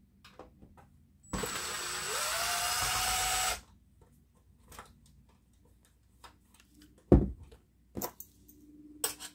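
Milwaukee M18 cordless impact driver running for about two seconds to back out a chassis screw, its motor whine rising in pitch as it spins up. Later come a sharp thump and a few light clicks of tool handling.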